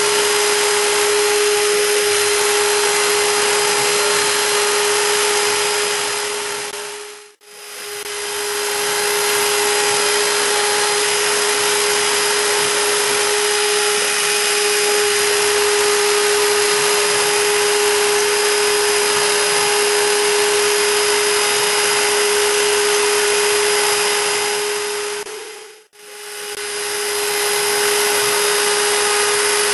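High-Z S-1000 CNC router's spindle running at about 25,000 rpm while a 0.7 mm engraving bit cuts lettering into a wooden sign: a steady high whine over an even hiss. The sound fades away and back twice, about seven and about twenty-six seconds in.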